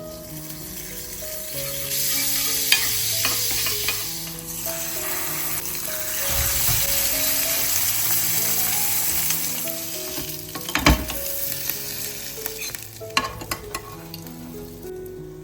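Food sizzling in hot oil in a pan. The sizzle swells about two seconds in, stays loud for several seconds, then dies down, with a few sharp clicks near the end.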